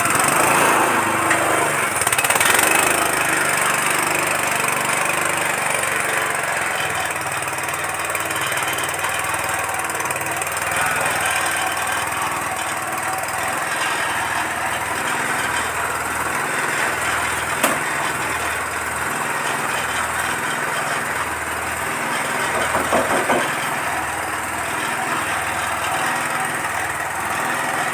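Small stationary petrol engine running steadily, turning a horizontal feed mixer through a worm gearbox while the mixed feed is emptied out of the bottom chute. A single sharp knock about two-thirds of the way through.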